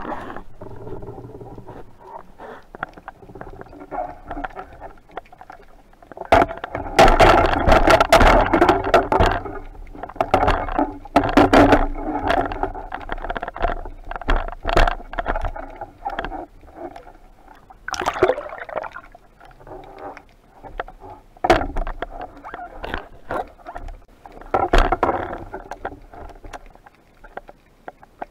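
Underwater noise picked up through a camera housing on a speargun: irregular knocks, scrapes and rushes of water as a speared fish is hauled in on the shaft line and handled. The busiest stretch is several seconds in, with further bursts every few seconds.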